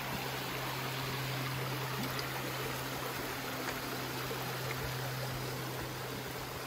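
A shallow, rocky creek running over stones: a steady rush of water.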